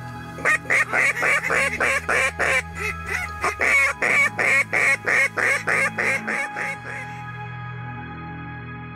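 Mouth-blown duck call sounded in a fast, even run of loud quacks, about four a second, for some six seconds. It is a hunter's calling sequence aimed at an incoming duck to draw it in.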